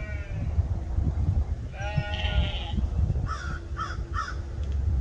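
Newborn lamb bleating: two high, wavering bleats, one right at the start and a longer one about two seconds in. Three short, harsher calls follow a second later, over a steady low rumble.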